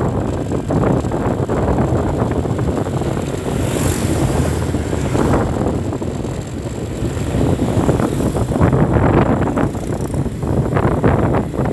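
City traffic noise with wind buffeting the microphone: a steady loud rumble, with a brief hiss about four seconds in.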